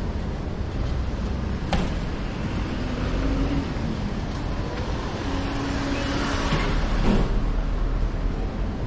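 City street ambience with a steady low rumble of traffic, swelling to its loudest about seven seconds in, and a sharp click about two seconds in.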